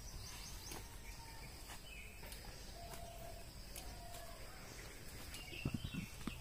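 Faint rural outdoor background with scattered short bird chirps, and a few soft rustles and knocks near the end.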